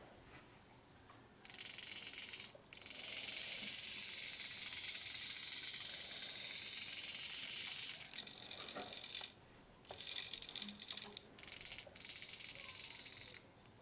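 Hobby servo motors of a kite aerial photography rig turning the camera cradle, a rattly, gritty gear whir that starts and stops several times, with one long run of about five seconds and shorter runs after it.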